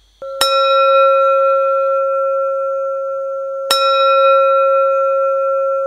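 A bell-like metal chime, struck twice about three seconds apart. Its clear, ringing tone holds steady without fading between the strikes.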